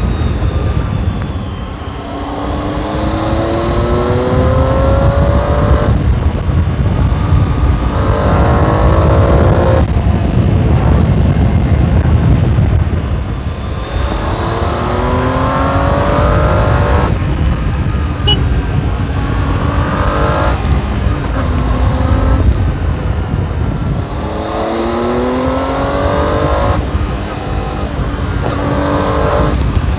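Triumph Tiger 800 XRx inline three-cylinder engine through its stock exhaust, accelerating hard: the pitch rises and drops back at each upshift, again and again. Wind rushes over the helmet-mounted microphone underneath.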